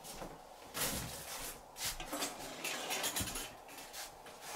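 Kitchen containers and lids being handled and moved about: scattered light knocks and rustles, a few of them a little sharper.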